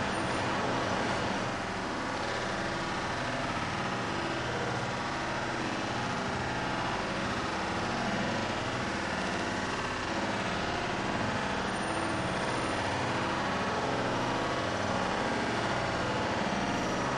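Steady rumbling background noise with a faint low hum running under it.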